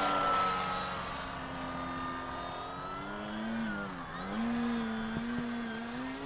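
Electric motor and propeller of an FMS PA-18 Super Cub RC plane flying overhead, a steady buzzing hum. Its pitch sags to a dip about four seconds in, then climbs back up.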